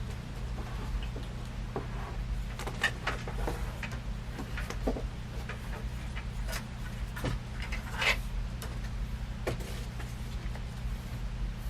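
Scattered light clicks and knocks from handling ceiling-fan parts and tools, irregular and a dozen or so in all, with a louder one about eight seconds in, over a steady low hum.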